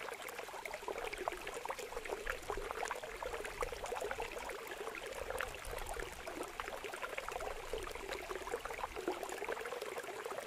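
Water running through a bamboo-slat fish trap and splashing into a woven basket of small fish: a steady pouring splash full of small crackling drips and splashes.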